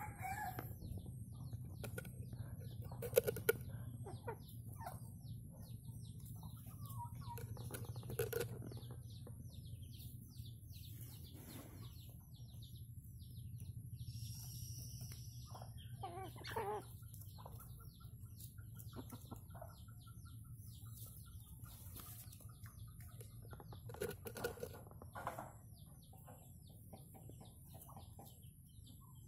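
Red junglefowl clucking now and then, with a short loud burst about three seconds in, over a steady low hum.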